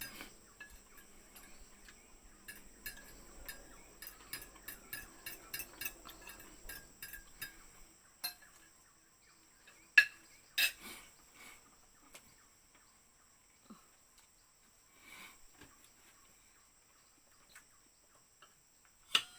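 Cutlery clinking and scraping against a plate while someone eats: a run of small quick clicks for the first several seconds, one sharp clink about ten seconds in, then only the odd light tap.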